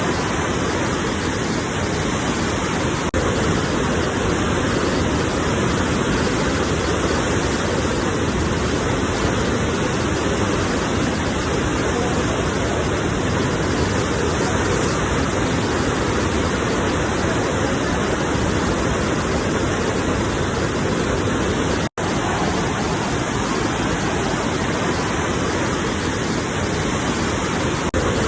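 Steady, even rush of sea surf with no separate wave breaks standing out. It cuts out for an instant about 22 seconds in.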